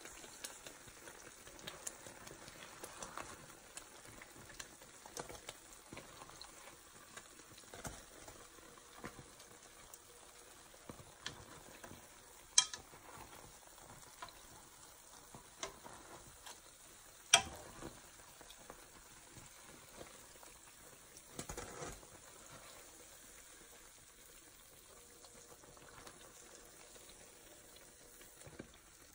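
Patongko dough sticks deep-frying in a pan of oil, a faint steady sizzle with small crackles. Two sharp clicks, about twelve seconds in and again some five seconds later, come from the metal tongs turning the dough.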